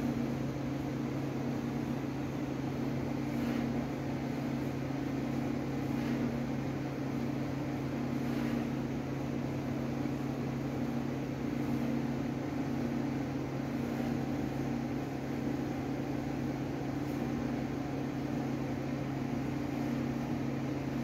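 Steady low mechanical hum of a running motor, holding one even pitch, with a few faint soft noises over it.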